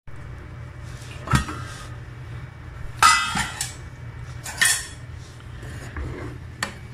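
Stainless-steel pot lid clanking against a cooking pan as it is handled: four sharp metallic knocks, the loudest about three seconds in with a brief ring.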